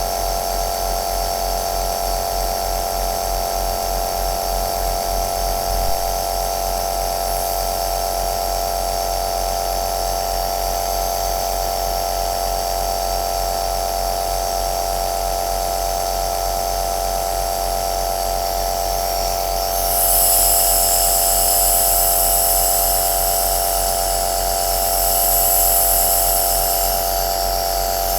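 Compressor nebulizer running with a steady buzzing hum and hiss. About twenty seconds in, the hissing grows louder and swells again near the end.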